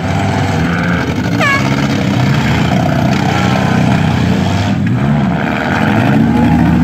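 Engines of several front-wheel-drive demolition derby cars running and revving together, rising and falling in pitch as the cars move around the arena.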